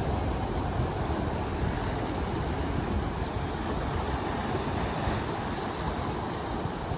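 Steady wash of ocean surf at a rocky shore, with wind noise on the microphone.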